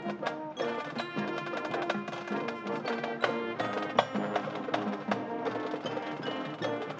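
Marching band music: sustained wind chords with mallet percussion and sharp wood-block and drum strikes.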